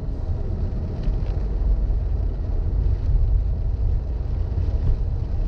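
Steady low rumble of a car heard from inside the cabin, its engine and tyres running as it drives slowly over a wet road.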